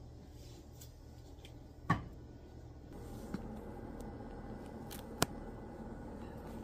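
A few sharp clicks over a steady low hum. The loudest click comes about two seconds in and another a little after five seconds.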